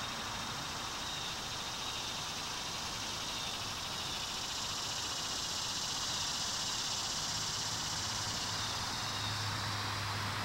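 Steady outdoor background hiss with no distinct events, and a faint low hum that comes in during the second half.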